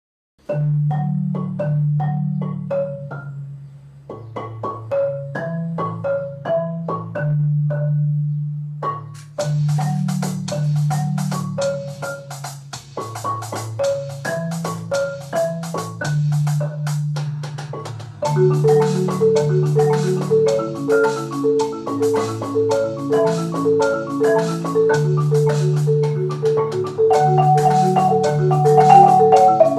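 Percussion ensemble of marimbas and an electronic drum kit playing. A marimba opens alone with a low bass line and higher melody notes; about nine seconds in the drums join with a steady cymbal pattern, and about eighteen seconds in more marimbas add a quick repeating figure.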